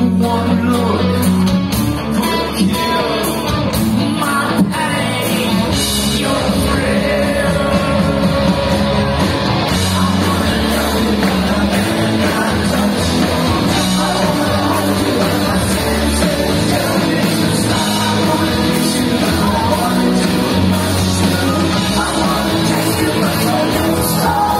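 Live rock band playing loudly, with electric guitars, a strong bass and drum beat, and a singer, recorded from the audience.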